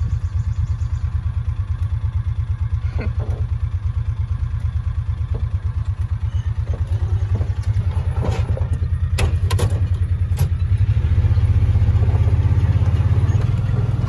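Farm vehicle engine idling with a rapid, even throb, then running louder about eleven seconds in as the vehicle moves off. A few sharp clanks between about eight and ten and a half seconds come as a metal pipe gate is opened.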